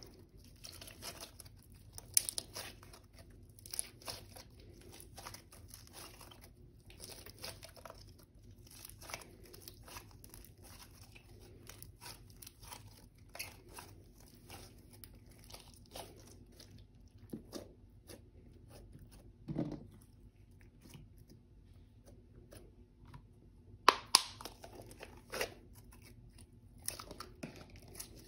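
Hands kneading, stretching and folding a large mass of slime: a run of sticky crinkling and crackling sounds, with two sharper snaps a little before the end.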